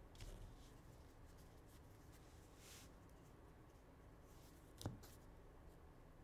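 Near silence with the faint rustle of trading cards being slid and handled, a soft brush of cards a little under three seconds in and a single light tap near the end.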